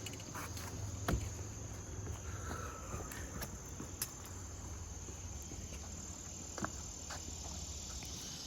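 Steady high-pitched insect drone of crickets or katydids, with a few sharp clicks and knocks scattered through it.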